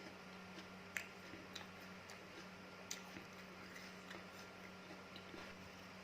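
Close-miked chewing of crisp fresh fruit: scattered sharp crunches and moist clicks, the loudest about a second in and again near three seconds, over a faint steady hum.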